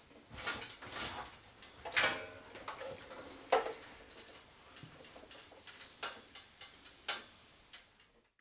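Ironing a shirt: the iron and the metal ironing board give irregular clicks and knocks, a few seconds apart, then the sound cuts off near the end.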